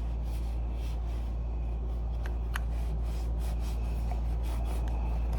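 A wipe rubbing over the metal parts of a fire-alarm chime during cleaning, with a few small clicks, over a steady low hum.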